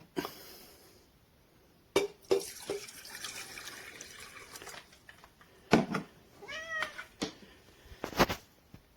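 A glass of water poured into a compact stainless-steel electric kettle, with knocks as the glass and kettle are handled. Near the end comes a short pitched squeal whose pitch rises and falls.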